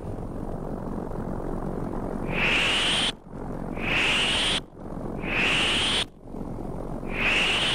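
Synthesised whooshing sound effect, repeating: a swell of hiss topped by a high whistling tone that cuts off sharply, four times, about every one and a half seconds.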